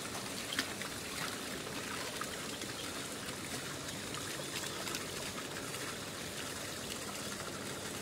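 Running water splashing steadily, with a few faint ticks of small splashes.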